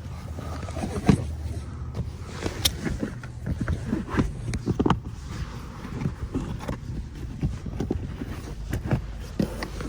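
Irregular knocks, thumps and scrapes of a molded all-weather floor liner being laid and pressed into a pickup truck's rear footwell, over a steady low hum.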